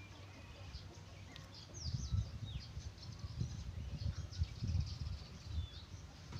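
Small birds chirping and whistling, with quick falling and rising calls, over an irregular low rumble that starts about two seconds in.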